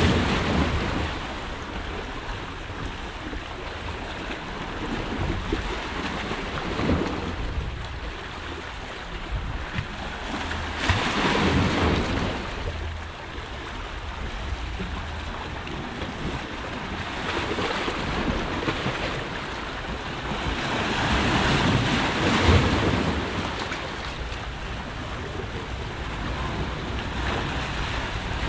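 Sea waves washing against shoreline rocks, swelling and ebbing every few seconds, with wind on the microphone.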